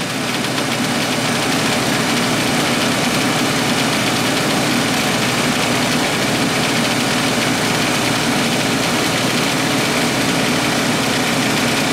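Refrigerant recovery machine running steadily, its compressor pulling the last refrigerant out of the wine cooler's system as the pressure falls to a few psi.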